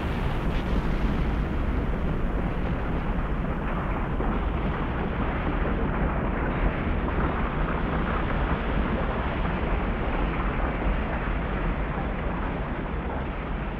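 A steady deep rumbling noise with no pitch or beat, heaviest in the low end, easing slightly near the end.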